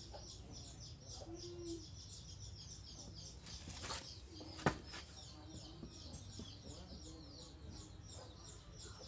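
Small birds chirping rapidly and continuously in the background, faint, with a single sharp click about four and a half seconds in.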